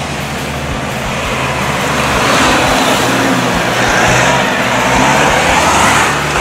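Off-road pickup truck's engine running as it drives past close by, growing louder about two seconds in as it nears.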